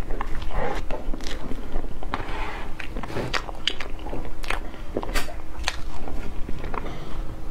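Close-miked eating of soft cream cake from a spoon: wet chewing, lip-smacking and frequent irregular sharp mouth clicks.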